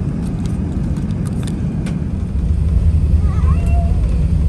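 Airbus A380 cabin noise: a steady low rumble from the airliner, growing louder about two seconds in.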